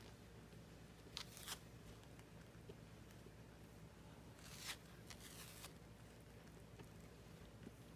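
Faint, short rustles and swishes of a clump of duck down as a cat paws at and bites it, four brief ones spread through, over near silence.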